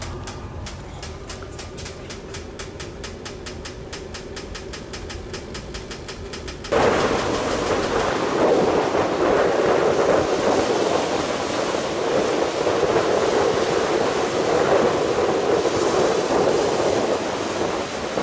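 Steady rapid ticking, about six a second, with a faint hum, from the heat-powered fan on top of a wood stove. About seven seconds in it cuts suddenly to louder surf breaking on a pebble beach, with wind buffeting the microphone.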